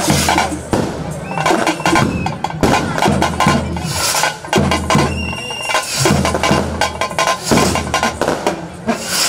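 Percussion music: drums beaten fast, with a heavy low beat about every second and a quarter under rapid lighter strokes.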